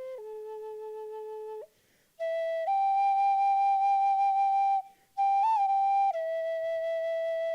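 A flute playing a slow melody of long held notes, broken by short breath pauses between phrases, with a quick grace-note flick on one note.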